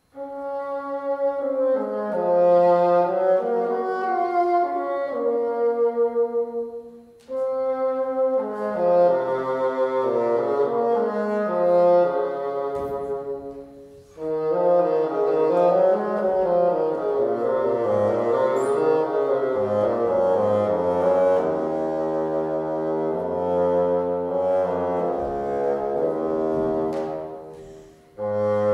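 Solo bassoon playing a melodic line in phrases, starting suddenly out of silence, with short pauses for breath about 7 and 14 seconds in and again near the end. In the second half the line dips into the instrument's low register.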